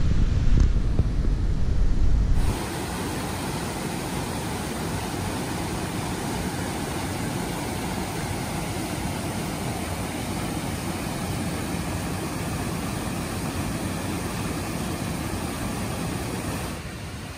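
Whitewater of a mountain river rushing steadily over boulders. The first couple of seconds are louder with a heavy low rumble, which changes suddenly to an even, hissing rush.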